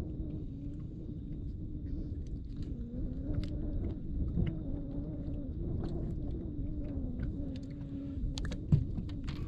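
Steady hum of a small motor, its pitch wavering a little, over a low rumble, with a few sharp clicks near the end.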